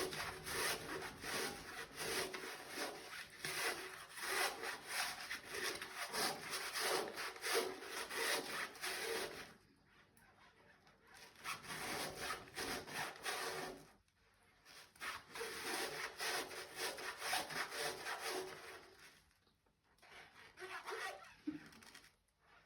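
Rapid back-and-forth scrubbing of a coffee maker part, in several bouts separated by short pauses.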